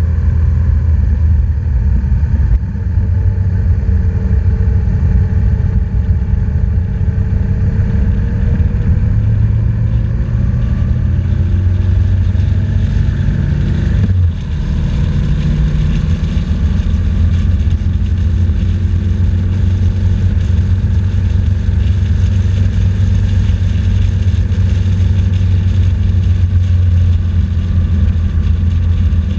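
BMW R1200GS flat-twin boxer engine running under way, its note rising and falling gradually with the throttle, over steady wind and road noise. There is a brief drop in level about two and a half seconds in and again about fourteen seconds in.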